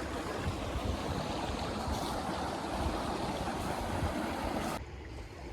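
Steady rushing outdoor noise, heaviest in the low end, that cuts off abruptly near the end.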